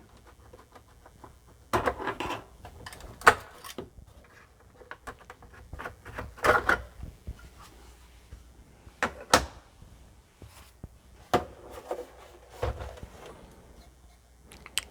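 Irregular clicks and knocks of a Commodore 64's plastic case and plugs being handled as it is readied for opening, the sharpest knock about three seconds in.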